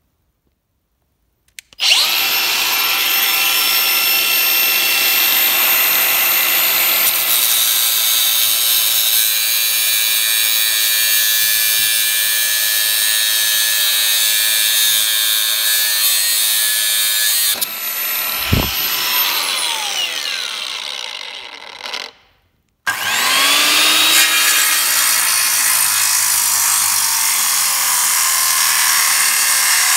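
A Milwaukee angle grinder starts up and cuts through the steel band-saw blade stuck in the log, then winds down with a thud. After a short break a circular saw spins up and cuts into the wood.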